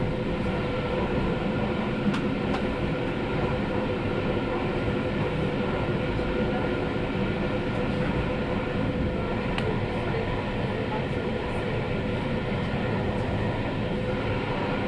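Steady running noise of a passenger train heard from inside the carriage as it rolls through a rail yard: an even rumble with a steady hum over it and a few light clicks.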